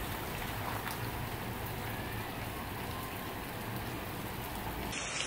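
Heavy rain pouring onto a flooded street, a steady dense hiss of drops splashing into standing and running water.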